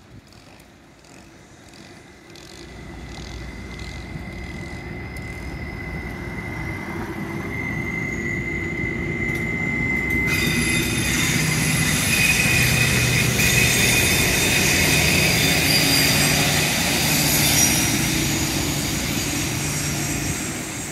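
Stadler FLIRT diesel-electric train accelerating away from a station: a rising whine as it gathers speed, then running and wheel noise that turns suddenly harsher about halfway through and grows loud as it passes, easing off near the end.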